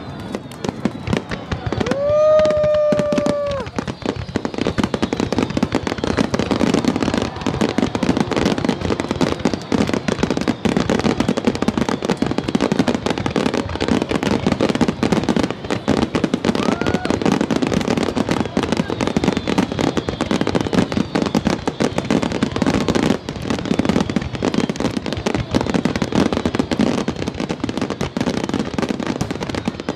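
Fireworks crackling densely and continuously, a steady rapid patter of small pops. About two seconds in, a long held pitched tone rises and then holds for over a second, and a shorter rising tone comes near the middle.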